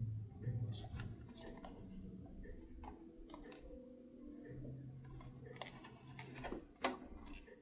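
Spartus 1166-C1 electric travel alarm clock being handled: about a dozen irregular small clicks and taps, sharpest near the end, over a low hum that comes and goes.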